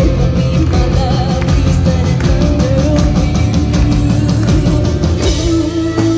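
Symphonic metal band playing live, loud: singing over distorted guitars, keyboards and fast, driving drums. About five seconds in a cymbal crash marks a change and a long held note comes in.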